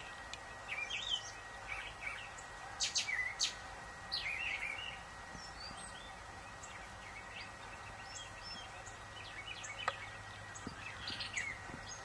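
Songbirds calling outdoors: scattered short chirps and sharp chips, with a cluster of sharper calls about three seconds in, a brief warbled phrase just after, and more chirps near the end.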